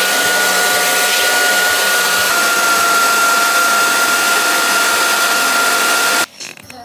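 Handheld hair dryer blowing steadily, a loud rush of air with a high whine in it. It cuts off suddenly near the end.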